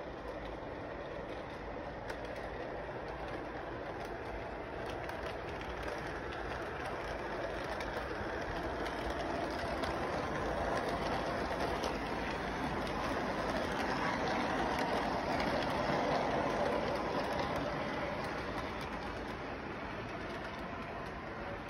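Electric model freight train running on its track, steady wheel-and-motor noise that grows louder through the middle as the cars pass close by, then fades.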